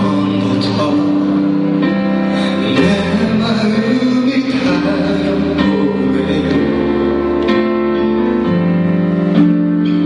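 Male singer singing live into a handheld microphone over the band's backing music, with long held notes.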